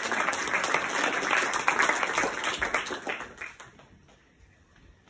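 Applause from a small seated audience, many hands clapping, dying away about three and a half seconds in.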